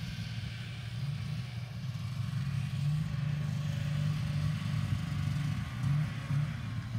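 Snowmobile engines running, a steady drone that grows louder about a second in.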